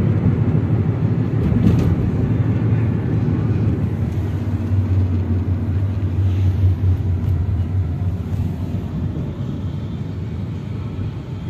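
Road and engine noise inside a moving taxi's cabin: a steady low rumble, a little stronger in the middle and easing off toward the end.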